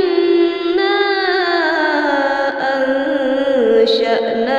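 A woman's unaccompanied voice reciting the Quran in melodic murottal (tartil) style, drawing out "Innā" as one long held note that slides slowly down in pitch.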